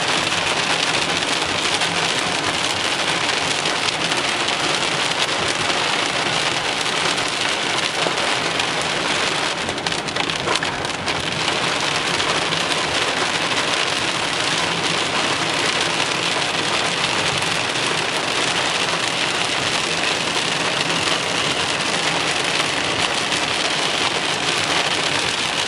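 Rain beating on a moving car, a loud steady hiss mixed with road noise from inside the car, easing briefly about ten seconds in.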